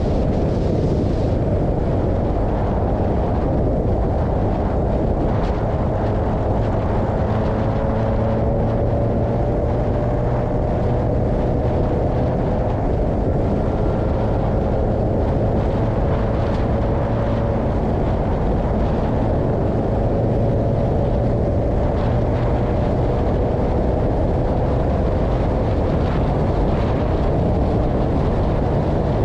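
Formula 2000 race car engine running hard at speed, heard from an onboard camera under heavy wind rush. The engine note climbs slowly and drops back several times as the car works through the corners and gears.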